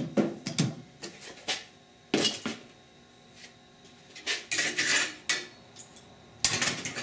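Metal clanking and clattering in several separate bursts: locking-pliers clamps being taken off a freshly welded sheet-steel patch piece and handled on a metal-topped workbench.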